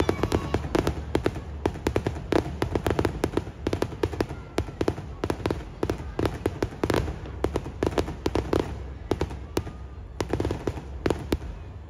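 Fireworks bursting close by: a dense, irregular string of sharp bangs and crackles, several a second, with no let-up.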